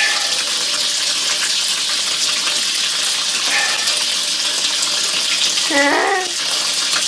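Tap water running steadily into a stainless steel sink and splashing over a gutted chicken carcass as it is rinsed by hand. A brief voice sounds about six seconds in.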